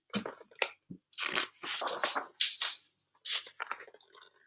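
Pages of a large picture book being turned and handled close to the microphone: a run of irregular papery rustles and crinkles.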